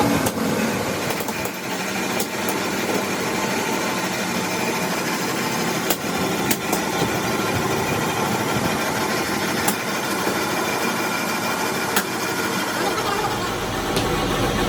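A machine running steadily, with a few short sharp ticks.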